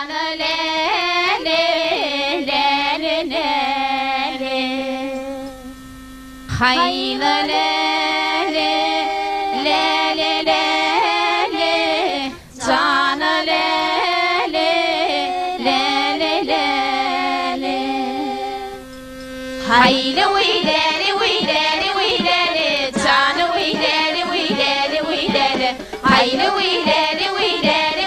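Turkmen küşt depdi music: a melody over a steady held drone, with brief breaks near 6 and 12 seconds in. From about 20 seconds in it becomes a faster, busier passage with many quick notes.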